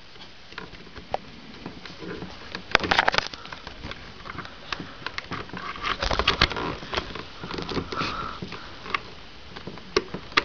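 Handling noise of a 3.5 mm audio cable being plugged into an auxiliary input: irregular small clicks and rustles, bunched about three and six seconds in.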